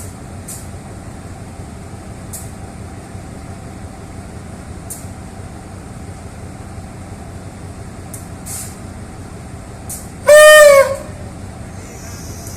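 GEA 4554 diesel locomotive's engine running steadily, with a few faint clicks. About ten seconds in comes one short blast of its horn, under a second long and far louder than the engine.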